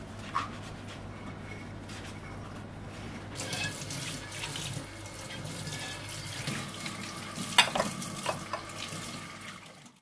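Kitchen tap running into a stainless steel sink as a plate is rinsed under the stream, the water getting louder a few seconds in. A couple of sharp clinks of dishes come about three-quarters of the way through.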